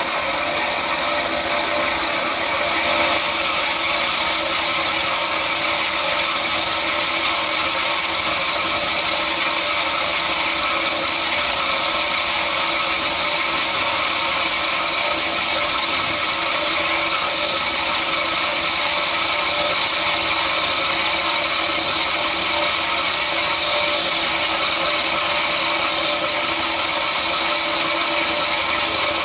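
Cormak G5025 metal-cutting band saw running steadily, its blade sawing through metal stock. The sound is a loud, even machine hiss and whine that turns brighter and slightly louder about three seconds in.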